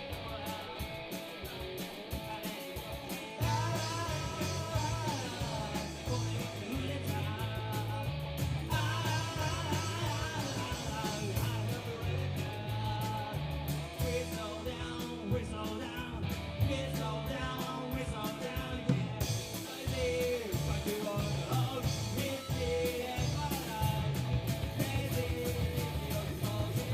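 Live rock band playing: electric guitar and bass with drums, and a singer's voice over them, louder from about three seconds in.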